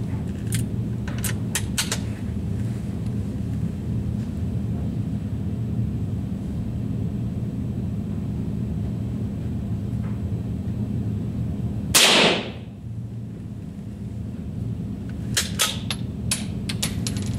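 A single rifle shot about two-thirds of the way through: one sharp crack with a short tail. It comes over a steady low hum, and a few sharp clicks sound near the start and again near the end.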